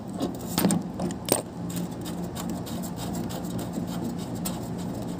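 Metal clinks of an adjustable wrench on the brass suction-line flare nut of a split air conditioner's outdoor-unit service valve, a few sharp clicks in the first second and a half, then faint scraping ticks as the loosened nut is turned off by hand. No refrigerant escapes, because it has been pumped down into the outdoor unit. A steady low hum runs underneath.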